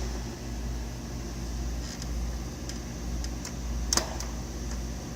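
A few light clicks and taps over a low steady hum, the loudest click about four seconds in, as the switched-off Kirby vacuum is handled.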